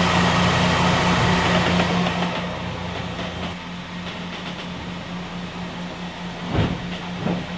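Steady machinery hum and rushing water noise inside the carbon hull of a Volvo Ocean 65 racing yacht under way. The rushing noise eases about two seconds in, and there is a short knock near the end.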